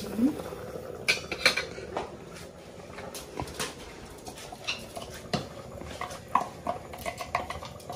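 Metal cookware clattering: pot lids and pans clinking and knocking in scattered, irregular taps.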